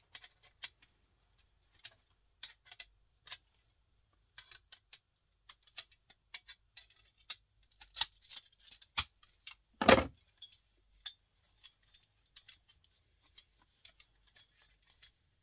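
Small hard plastic and metal printer parts being handled and poked at during disassembly: scattered light clicks and taps, a brief flurry of scraping clicks about eight seconds in, and a sharp knock near ten seconds.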